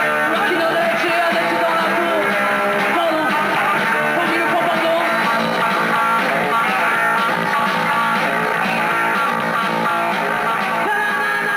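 Rock band playing, led by electric guitar, at a steady loud level.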